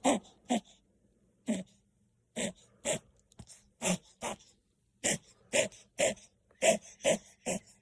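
A Chihuahua puppy coughing in a run of short, harsh hacks, about a dozen, often two about half a second apart. It is the cough of kennel cough.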